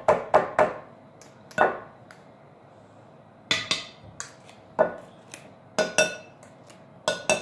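Irregular clinks and knocks of a stick blender's head tapped against a glass mixing bowl and scraped with a metal utensil to clear off creamed butter batter. A cluster of knocks comes at the start, a short lull follows, then a second run of clinks.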